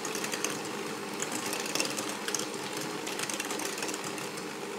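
Electric hand mixer running steadily, its twin beaters whirring through creamed butter, sugar and egg in a glass bowl, with scattered light ticks.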